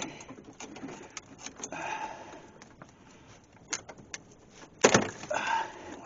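Curved-jaw locking pliers clamped on an AMC Rebel's dash-mounted ignition switch collar, clicking and scraping metal on metal as they are worked to turn the switch. There is one loud sharp snap about five seconds in as the pliers' grip slips.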